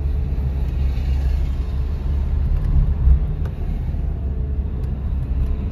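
A car on the move: steady low rumble of road and engine noise.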